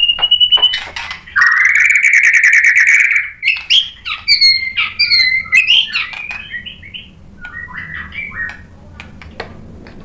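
White-rumped shama (murai batu) singing: a clear held whistle, then a rapid buzzing rattle lasting about two seconds, followed by a quick run of varied whistles and chattering notes that grow softer after about six seconds.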